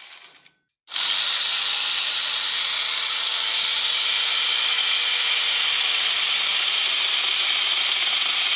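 Electric angle grinder fitted with an 11.5-inch chainsaw bar-and-chain kit, running with its chain cutting into a tree branch: a loud, steady, high hiss and whir that starts about a second in after a brief silence.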